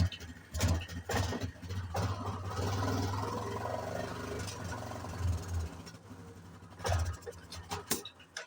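Yamaha Grizzly 660 ATV's single-cylinder engine being blipped on the throttle several times, then held at a steady higher speed for a few seconds, with another sharp rev near the end before it cuts off. The engine stutters and pops as the revs climb, which the owner suspects may be ignition timing.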